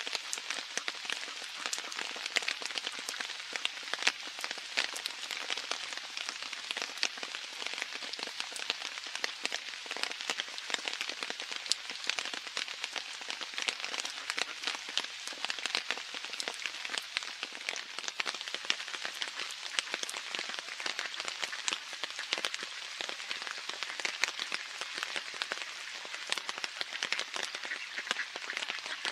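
Steady rain falling on wet pavement and pond water, a continuous hiss dotted with many sharp ticks of single drops.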